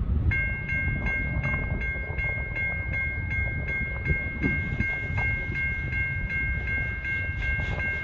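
Railway level crossing warning bell starting up and ringing steadily, a two-tone ring pulsing nearly three strikes a second, warning of an approaching train. Low wind rumble on the microphone underneath.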